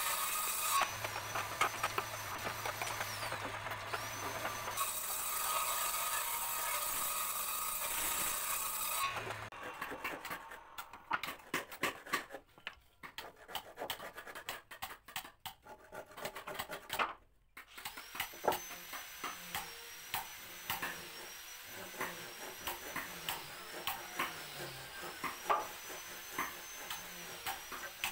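For about the first nine seconds a power woodworking machine runs with a steady hum as a teak board is fed across it. Then a hand saw cuts into a teak beam in short, irregular rasping strokes.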